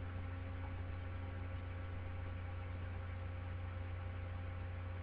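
Steady electrical mains hum with a faint hiss in the recording chain, unchanged throughout.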